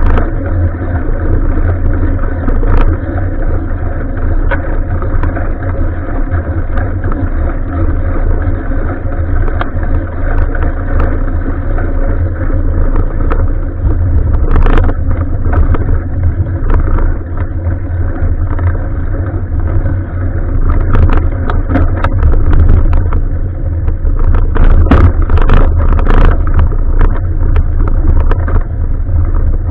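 Steady, muffled wind and road rumble picked up by an action camera riding along on a bicycle. Knocks and rattles from bumps come in about halfway through and grow more frequent near the end.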